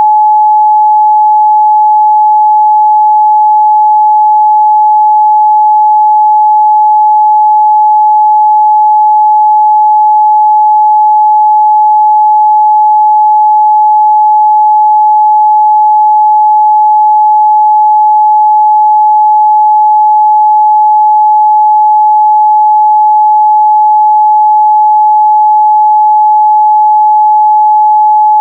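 Steady 852 Hz pure sine-wave test tone, held at one pitch and constant loudness without a break.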